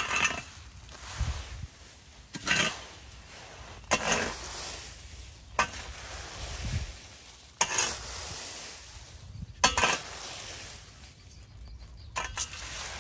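Metal-tined rake dragged through dry leaves over concrete pavement: a scraping, rustling stroke about every two seconds, seven strokes in all.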